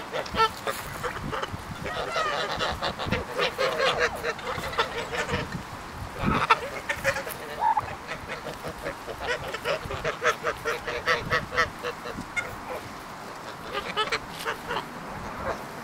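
A flock of white domestic geese honking and gabbling, with many short calls overlapping, now and then one louder honk.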